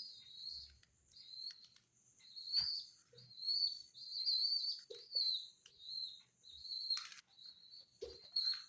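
Young pigeon squab peeping: a rapid run of short, high-pitched squeaks while it is being hand-fed, with a few light knocks in between.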